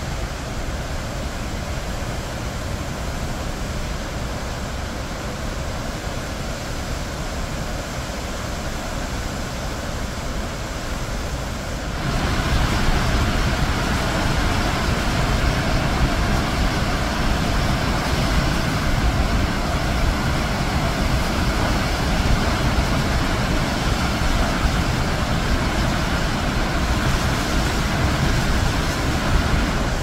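The Zambezi River plunging over Victoria Falls into the gorge: a steady rush of falling water that gets louder and brighter about twelve seconds in.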